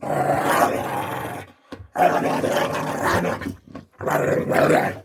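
A dog making drawn-out playful growling 'wah wah' vocalizations, in three long bouts with short breaks between them.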